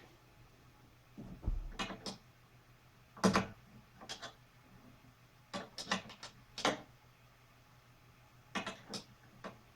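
Irregular clicks and clacks of tools and parts being handled during exercise-bike assembly, a dozen or so short knocks with a dull thump about a second and a half in and the loudest clack about three seconds in.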